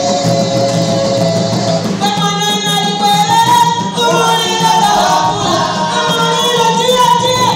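Live traditional Zambian kitchen-party music: voices singing a melody, call-like lines changing about two seconds in, over a steady beat on large hand drums.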